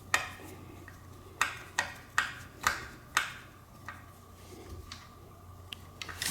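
Sharp, irregular metal clicks, about eight in all, as a Phillips screwdriver backs small screws out of the Lectric XP 2.0 e-bike's frame cover over the controller.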